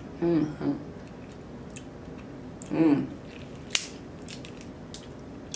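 Eating snow crab legs close to the microphone: chewing, with small clicks of crab shell and one sharp crack a little before four seconds in. Two brief voice sounds come in, one near the start and one about three seconds in.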